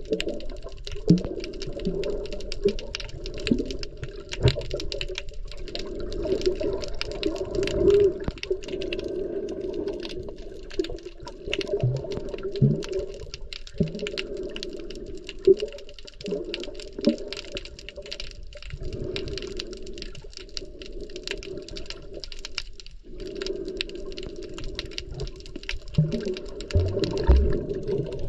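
Underwater sound picked up by a camera in a waterproof housing: a muffled water wash with constant fine crackling clicks, and a few dull low thumps.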